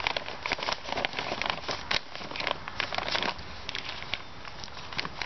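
Polythene polytunnel sheeting crackling and crinkling as it is handled and wrapped around a timber batten at the base of the tunnel. The crackles come thick for the first three seconds or so, then thin out.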